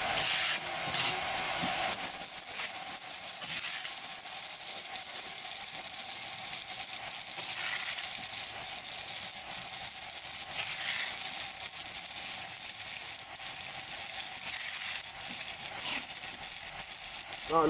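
Handheld mini inverter stick welder running a 2.1 mm electrode at 100 A on steel angle iron: the arc crackles and sizzles steadily.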